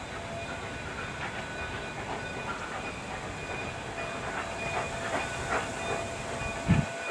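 Low rumbling noise over a faint steady hiss from a distant standing steam train. Near the end comes a low thump, after which the rumble stops abruptly.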